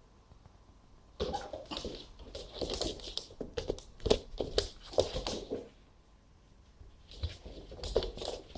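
A cat's paws and claws scrabbling, skidding and thudding on the floor as it dashes and pounces after a laser pointer dot, in two bursts with a pause between.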